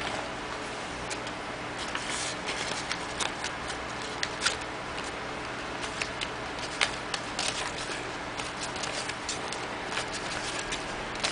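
Paper banknotes rustling and crackling as they are handled and dropped into a pile, a string of irregular crisp snaps over a steady hiss.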